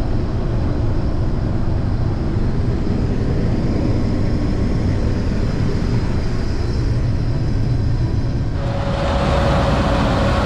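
Grain truck running down the road, a steady low rumble. About three-quarters of the way through the sound turns brighter and louder, with a steady whine.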